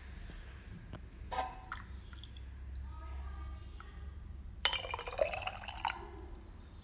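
Barley drink poured from a stainless steel ladle into a ceramic mug: a short splashing pour about five seconds in, after a light clink about a second and a half in.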